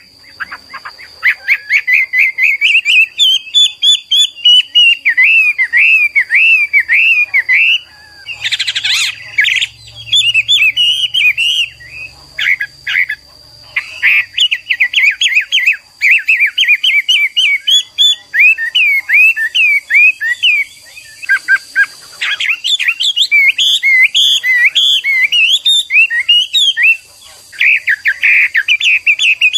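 Chinese hwamei (Garrulax canorus) singing: a loud, varied song of rapid repeated whistled notes and warbled phrases, broken by a few brief pauses. A faint steady high tone runs underneath.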